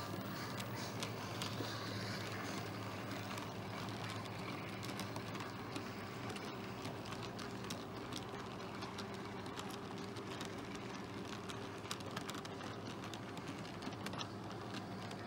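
Model train goods wagons rolling past on the track: a steady hum with many small clicks of the wheels running over the rails and joints.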